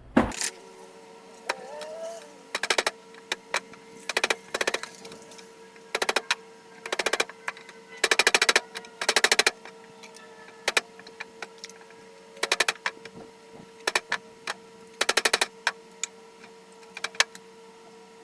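Air-over-hydraulic pump of a foot-pedal shop press running in short bursts, a rapid clatter each time it is pressed, repeated roughly once a second over a steady tone.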